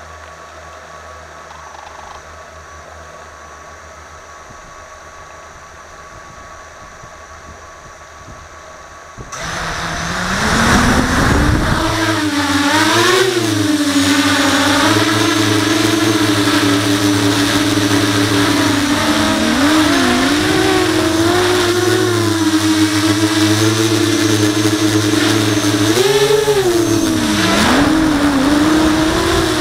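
A 5-inch FPV racing quadcopter's brushless motors and props, heard from its onboard camera. After a stretch of quiet low hum they spin up suddenly about a third of the way in, into a loud whine that rises and falls in pitch with throttle as the quad lifts off and flies.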